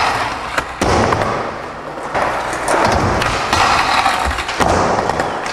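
A skateboard rolling on hard ground, with several sharp thuds and knocks of the board and trucks hitting the ground or an obstacle.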